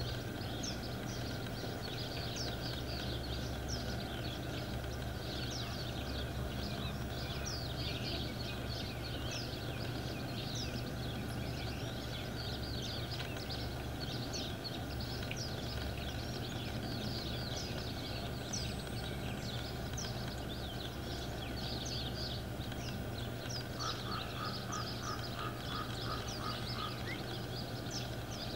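Dense chorus of short, high chirping animal calls, many each second, over a steady low hum. A brief rapid trill of repeated notes comes in a few seconds before the end.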